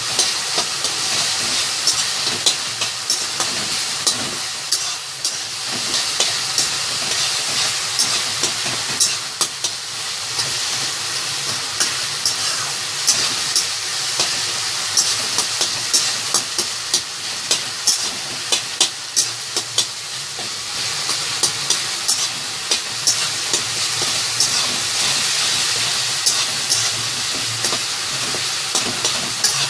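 Tomato and onion gravy sizzling in mustard oil in a pan as it thickens. It is stirred with a spoon, which makes frequent short clicks and scrapes against the pan.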